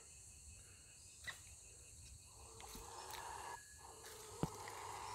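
Male bush stone-curlew giving a low growling hiss, a threat display defending its chicks from a passing dog and person. The hiss starts about two seconds in, breaks off briefly and starts again, with a couple of faint sharp clicks along the way.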